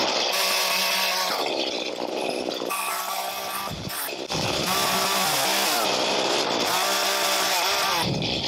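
Two-stroke chainsaw cutting tree branches, its engine pitch repeatedly rising and falling as the throttle is squeezed and eased. It eases off around four seconds in, then runs hard again.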